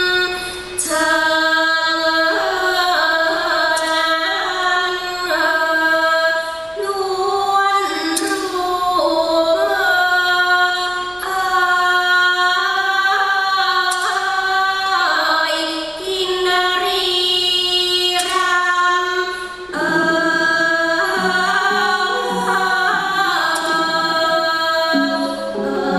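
Thai classical song for dance: a woman's voice sings long, gliding, ornamented held notes over instrumental accompaniment. A lower, stepping melodic line comes in about twenty seconds in.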